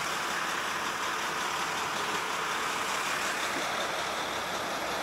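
Heavy truck's diesel engine idling, a steady, even running noise with no changes.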